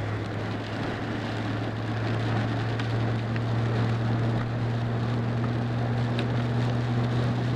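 Steady low drone of a car being driven, engine hum with road noise.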